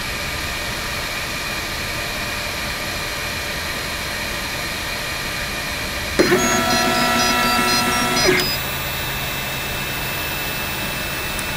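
MakerBot Replicator 2 3D printer at the start of a print: a steady fan hum, then about six seconds in its stepper motors whine for about two seconds, rising in pitch as they start, stepping through a few pitches and falling away as the axes move into printing position.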